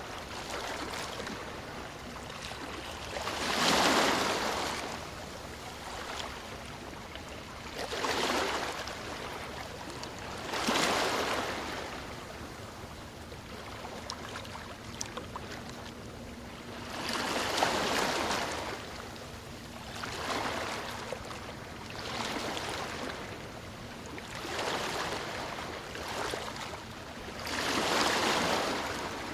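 Ocean waves breaking, a rushing surge of surf swelling and fading every two to four seconds, about eight in all, the loudest about four seconds in.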